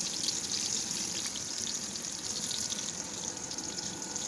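Breaded green tomato slices frying in hot oil in a pan: a steady sizzle with many fine crackles.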